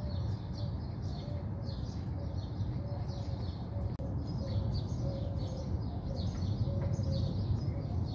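Small birds chirping rapidly and continuously over a steady low background rumble.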